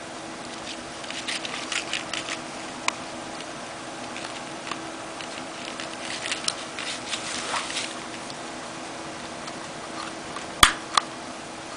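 A Cold Steel Double Agent II knife in its hard plastic sheath being turned and handled: scattered soft scrapes, taps and ball-chain rattles, then two sharp plastic clicks about a second apart near the end. A faint steady hum sits underneath.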